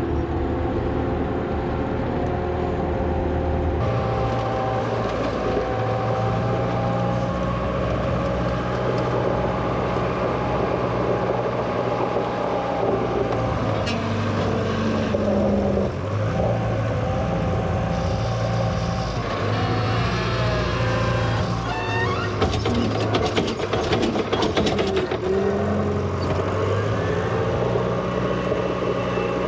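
1963 Volvo LM225 wheel loader's engine running as it works, its pitch stepping up and down with the throttle. About three quarters in there is a spell of rattling and clatter.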